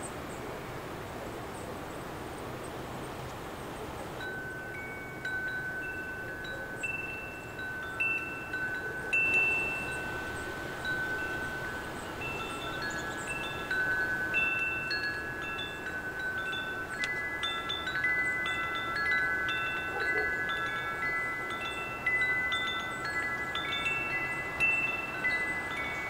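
Wind chimes ringing irregularly, several steady notes of different pitches overlapping and fading, starting about four seconds in, over a rushing of wind noise.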